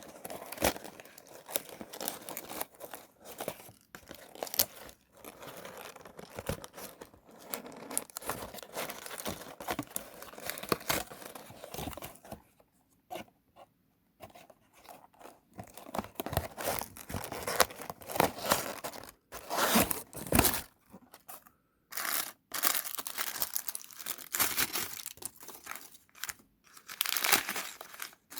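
Hands tearing and crinkling plastic wrapping while opening a blind-box L.O.L. Surprise! O.M.G. doll package, in irregular bursts with a short pause a little before halfway.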